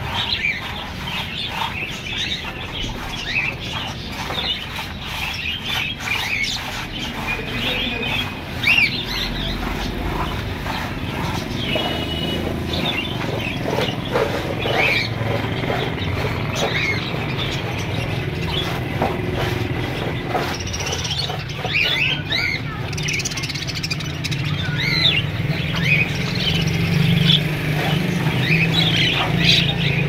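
A flock of budgerigars chattering, many quick high chirps and warbles overlapping continuously, over a steady low hum that grows louder near the end.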